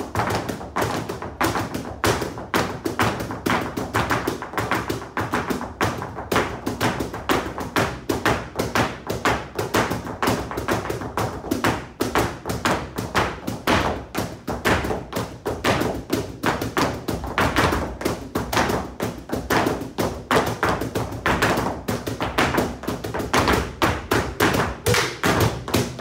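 Two dancers' flamenco footwork (zapateado): fast, dense heel and toe stamps of flamenco shoes on the floor, beating out the 12-beat bulerías rhythm.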